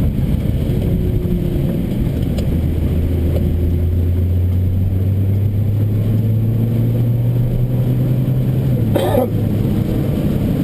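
Nissan GT-R engine heard from inside the cabin, its note climbing slowly under acceleration and then falling back about nine seconds in, with a short burst of noise there. Heavy tyre and road noise on a wet track runs underneath.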